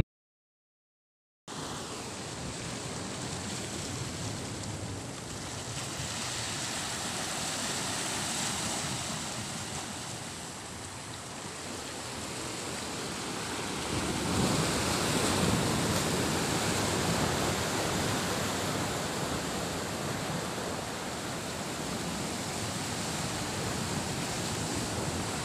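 Sea surf washing over coastal rocks: a steady rush of water that starts after about a second and a half of silence and swells louder about fourteen seconds in.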